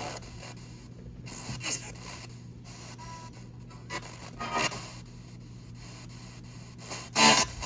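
Spirit box sweeping FM radio stations, played through a small guitar amplifier: steady static hiss with a low hum, broken every second or two by short choppy fragments of broadcast sound. The loudest fragment comes near the end.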